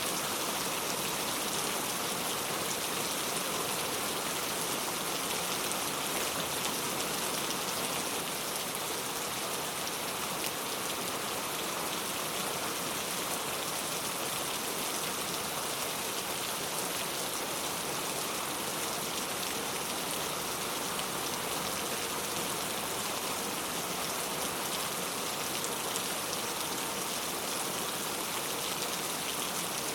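Heavy rain falling steadily, a dense even hiss of drops on surfaces with no breaks or thunder.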